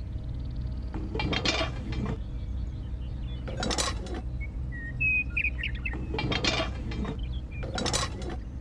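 Steady low engine drone with four separate bursts of metallic clinking and scraping, and a few bird chirps about five seconds in.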